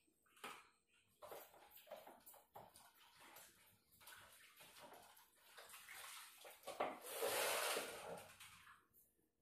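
Faint splashing of water, with a louder rush of running or poured water about seven seconds in.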